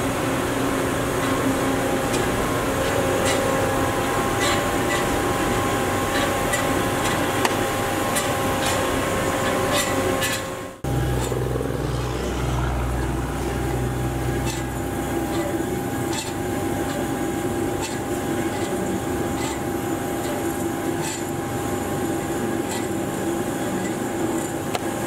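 Hyd-Mech S-20A horizontal band saw running and its blade cutting through metal bar stock: a steady mechanical hum with several held tones and scattered faint ticks. About eleven seconds in the sound breaks off for an instant and comes back with a deeper hum.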